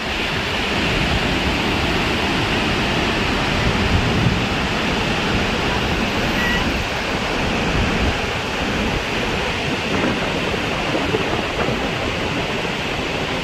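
Fast-flowing floodwater rushing in a steady, loud wash of noise.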